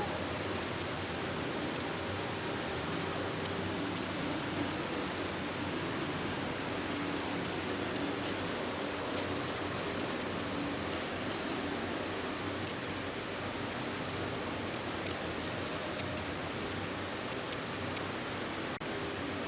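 A thin, high whistle-like tone, slightly wavering, broken into stretches of one to two seconds, over a steady hiss.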